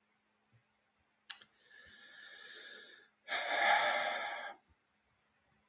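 A man's breathing between phrases: a sharp mouth click, a faint breath in, then a louder breath out like a sigh.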